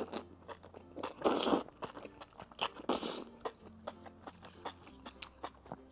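Close-up eating sounds of a person chewing sesame-sauced fatty beef and enoki mushrooms: many small wet mouth clicks, with two short louder slurps about one and three seconds in.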